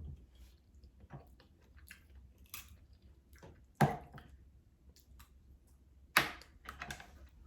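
Close-miked eating of a seafood boil: chewing, squishing and small wet clicks. Two sharp knocks, one just under four seconds in and one about six seconds in, stand out above the rest.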